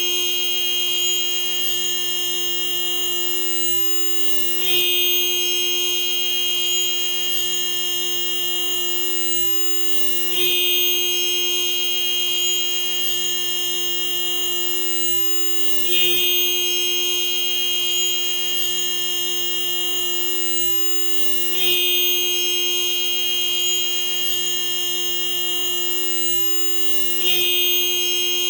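Stock electric car horn as fitted to the Daihatsu Sigra, Gran Max and Toyota Calya, held down in one continuous steady blare. A brief jump in loudness comes about every five and a half seconds, five times in all.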